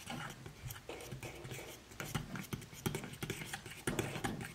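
Metal spoon stirring thick cake batter in a ceramic mixing bowl: soft, irregular scrapes and light clicks of the spoon against the bowl.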